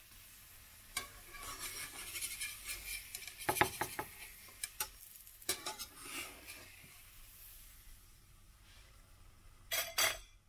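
A pancake sizzling in a frying pan while a slotted metal spatula presses it and scrapes the pan, with sharp metal clinks about three and a half and five and a half seconds in. The sizzle dies down after about seven seconds, and a short loud clatter comes near the end.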